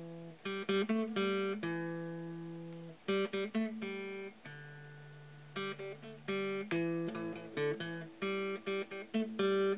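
Intro music: acoustic guitar picking and strumming chords, each cluster of notes ringing out and fading.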